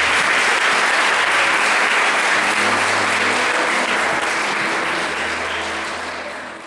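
Audience applauding steadily, then fading out over the last couple of seconds.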